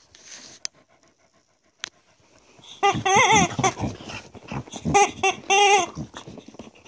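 A dog biting a rubber squeaky chicken toy: a few loud, wavering squawks from about three seconds in, after faint rustling and a couple of clicks.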